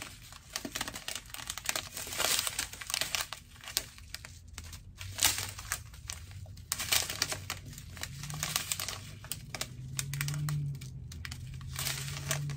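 Small plastic bags of diamond-painting drills crinkling and rustling as a strip of them is handled and flipped through, with irregular crackles throughout.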